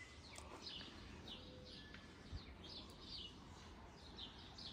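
Faint birds chirping outdoors: short, falling chirps, about two or three a second, over a faint low background rumble.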